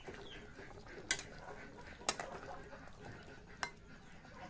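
A metal spatula clinks against the side of a metal cooking pan as it is moved through a finished fish curry: three sharp clinks about a second apart over a faint, steady background hiss.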